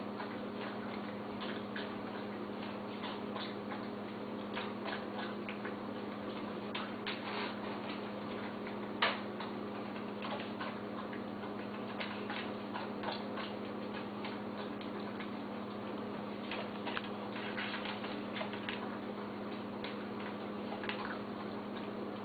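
A dog eating: irregular small clicks and smacks of chewing and licking, with one sharper knock about nine seconds in, over a steady low hum.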